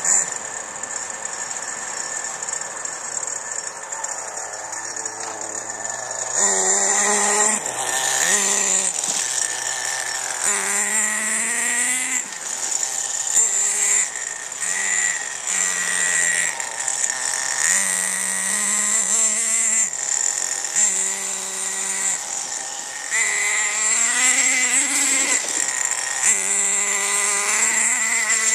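Radio-controlled car driving back and forth, its motor revving up and down in repeated bursts, quieter for the first few seconds and louder from about six seconds in.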